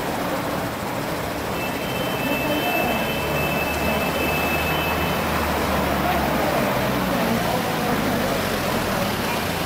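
Busy city street traffic: engines and tyres of passing cars and buses in a steady wash of noise, with voices of passers-by mixed in. A low engine rumble swells through the middle of the stretch.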